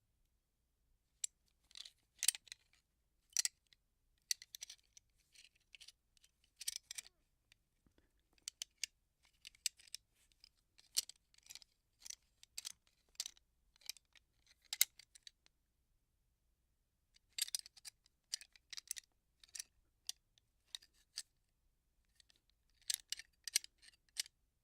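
Metal gun parts being handled: clusters of sharp metallic clicks and light rattles, broken by short pauses.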